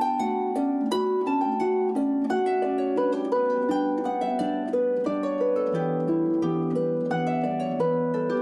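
Background music: a plucked string instrument playing quick runs of notes over held low notes, the bass note stepping lower about two-thirds of the way through.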